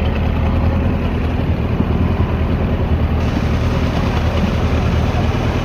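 A ship's engine running steadily, with a low, even hum.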